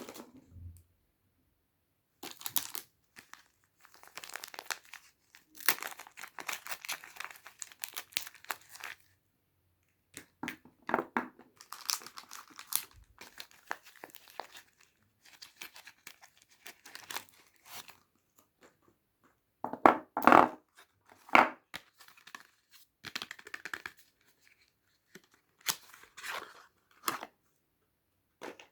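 Soap bar wrapping being torn open and crinkled by hand, in irregular bursts of crackling with short pauses between them, the loudest rips about two-thirds of the way through.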